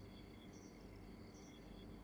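Faint crickets chirping in short, evenly spaced chirps over a low background hum.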